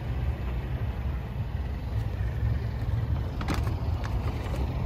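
Wind buffeting the phone's microphone, a steady low rumble that surges and falls, with a few light clicks about three and a half seconds in.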